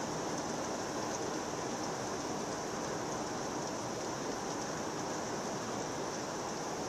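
Heavy thunderstorm rain pouring down steadily through trees, an even hiss without thunder.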